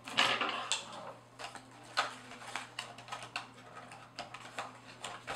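Plastic and cardboard packaging being handled and opened: scattered small clicks and taps with some rustling.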